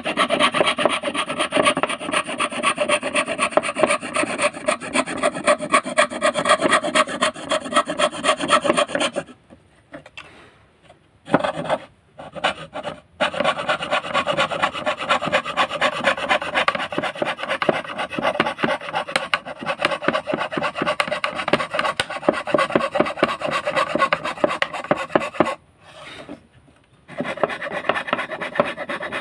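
Hand fret saw cutting wood in rapid, even short strokes. It stops for a couple of seconds about nine seconds in, starts again after two brief bursts, and pauses once more near the end before resuming.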